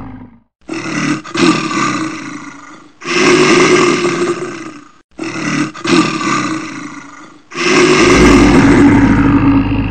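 Bear roaring: four long calls of about two seconds each, one after another with short gaps.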